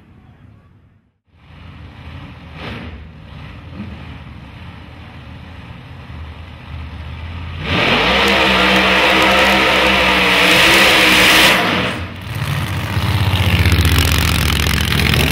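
Supercharged Chevy Nova SS drag car's V8 running with a lumpy idle. About eight seconds in the car does a burnout: the engine revs high over loud tyre hiss and squeal for about four seconds, then cuts off abruptly. Near the end the engine runs and revs again as the car rolls.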